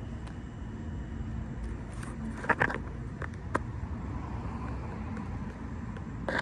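Steady low outdoor rumble of distant traffic, with a few short clicks and knocks about two and a half seconds in and again a second later.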